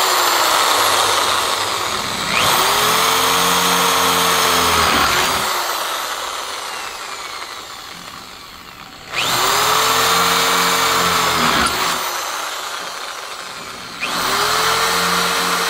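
Corded electric drill boring holes into the edge of an A-frame camper's roof panel, which has a styrofoam core. A run stops about two seconds in. The motor then starts again three times, spinning up with a rising whine at about two and a half, nine and fourteen seconds, and after the first two of these runs it winds down with a falling whine.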